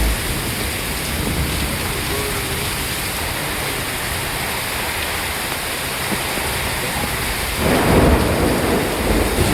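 Steady rain falling in a thunderstorm, with a rumble of thunder swelling up about three-quarters of the way in.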